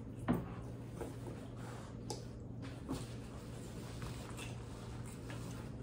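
Eating noises from a seafood boil of crab legs and shrimp: a few short, sharp clicks and soft handling sounds over a steady low hum.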